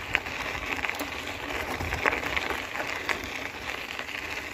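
Bicycle tyres rolling over a loose gravel dirt road: a steady hiss with scattered small ticks from the stones, over a low wind rumble.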